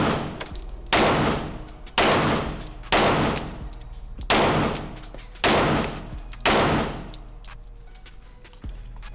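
Pistol fired six times at a steady, unhurried pace of about one shot a second, each sharp crack followed by a long echoing tail; the firing stops about six and a half seconds in.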